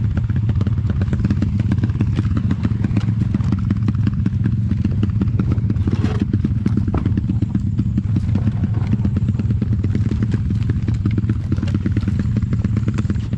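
Pit bike's single-cylinder four-stroke engine running steadily at low revs on a rocky downhill descent, with knocks and rattles as the bike bumps over rocks and a brief rush of noise about six seconds in.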